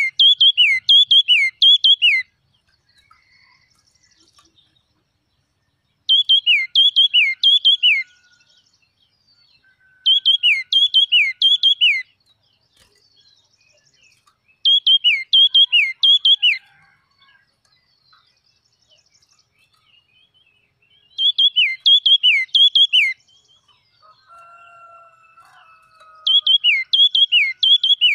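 Yellow-cheeked tit singing a repeated phrase of four or five quick notes, each sliding down in pitch. The phrase lasts about two seconds and comes six times, roughly every four seconds.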